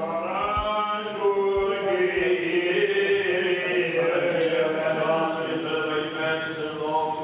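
A male cantor singing Orthodox Byzantine chant: a slow, melismatic line of long held notes that glide from pitch to pitch.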